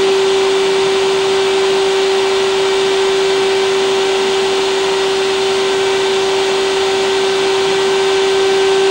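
Loud, steady drone: one held hum with fainter overtones above it over an even hiss, unchanging throughout.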